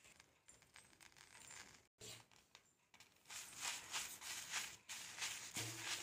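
A wooden spatula stirring and tossing drumstick (moringa) leaves in a dry kadai, a soft rustling and scraping that starts about three seconds in and goes in short strokes, two or three a second. The leaves are just in the pan and not yet roasted crisp.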